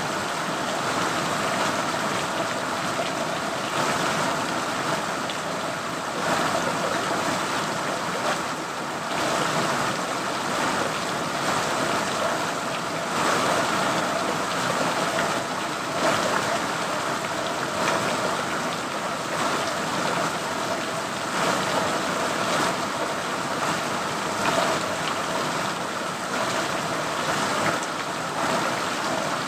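Steady rain falling: a dense, even hiss with faint irregular spatters through it.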